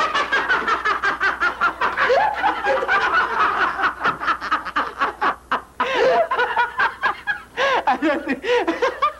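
Several people, men and a woman, laughing hard in quick rhythmic bursts of "ha-ha-ha", the pitch rising and falling, with a couple of brief pauses for breath.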